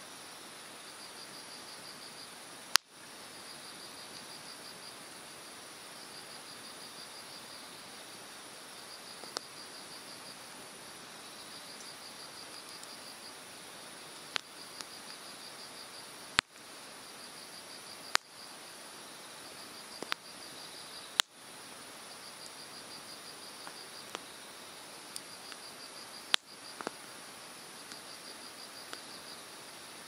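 Hardwood campfire crackling, with several sharp pops at irregular intervals, over the steady rush of a mountain stream. Insects chirp throughout in repeated short pulsed trills.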